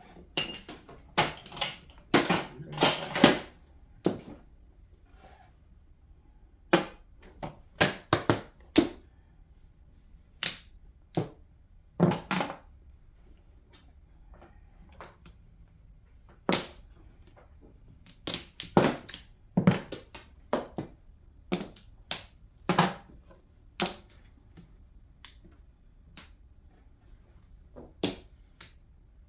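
Mahjong tiles clacking: sharp clicks as tiles are set down on the table and knocked against one another while the hands are arranged. They come at irregular intervals, some singly and some in quick runs of several.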